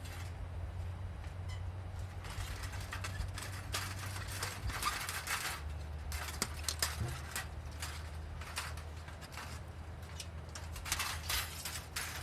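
Charcoal and a metal fire-extinguishing pot being handled: bursts of light scraping and clinking that come in clusters, over a steady low rumble.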